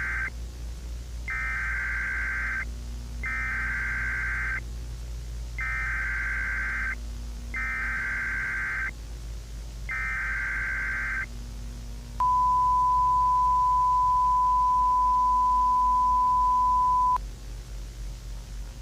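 Emergency Alert System signal: a run of short, harsh digital data bursts, each a little over a second long with brief gaps, then a single steady attention tone held for about five seconds that cuts off abruptly.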